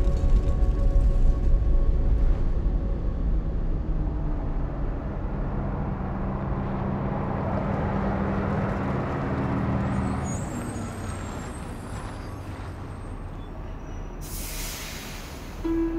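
City bus engine running with a steady low rumble that eases off after about ten seconds, then a sharp hiss of its air brakes releasing air near the end.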